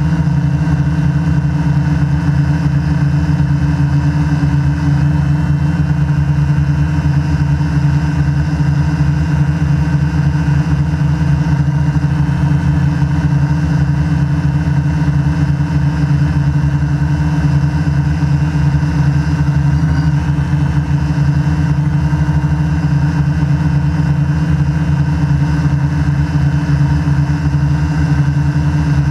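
QAV500 quadcopter's brushless motors and propellers humming steadily as it hovers, heard up close from the GoPro mounted on its frame.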